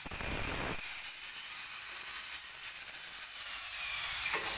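Handheld angle grinder with a stone-cutting blade, heard as a steady hiss with a faint high whine. Near the end the whine falls in pitch.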